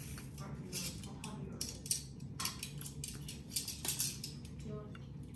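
Scattered light clicks and clinks of kitchen utensils against dishes, over a low steady background hum.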